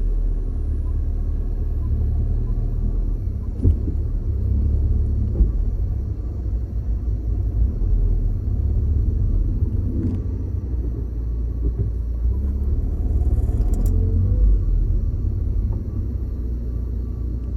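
Mini Countryman on the move, with a steady low rumble and a few sharp knocks at irregular intervals: the knocking noise from the rear of the car.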